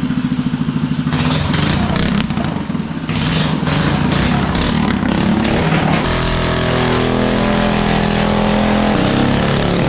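Minibike engine running hard during a burnout, with a steady hiss of spinning tyre joining from about a second in; the engine note changes about six seconds in.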